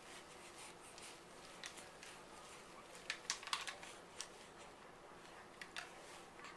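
Faint, irregular light clicks and taps, a baby handling and knocking plastic toys on a play mat, with a small cluster of sharper clicks about halfway through.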